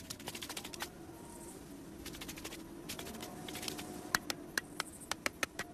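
Cartoon sound effects: a series of light, sharp clicks and taps over a faint steady hum, a quick run of them at the start and more widely spaced, sharper clicks in the last two seconds.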